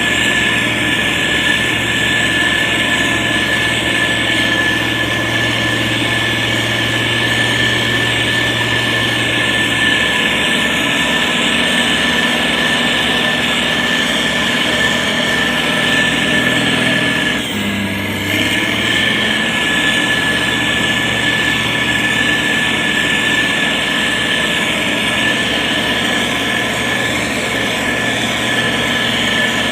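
Diesel engine of heavy road-building machinery running steadily, with a steady high whine over the low engine note. The engine note shifts briefly about seventeen seconds in.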